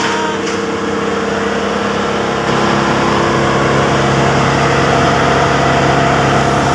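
Wood chipper's engine running loudly and steadily, an even drone with a rushing noise over it; it gets slightly louder about two and a half seconds in.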